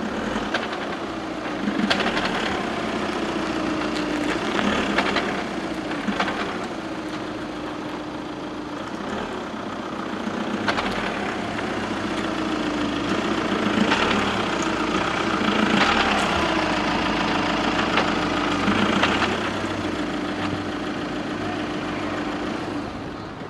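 VW Tiguan's drivetrain running, with the engine note shifting in pitch several times and a short clattering knock at each change. This is the rattle on every load change and gear shift that the owner complains of, which a new dual-mass flywheel and clutch have not cured.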